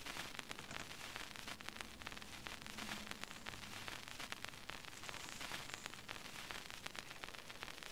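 Faint static: a steady hiss with dense crackling throughout.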